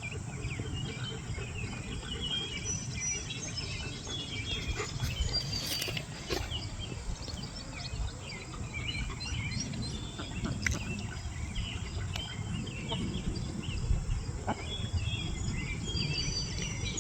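Outdoor ambience: many birds chirping and calling over a faint insect drone, with a steady low rumble of wind on the microphone.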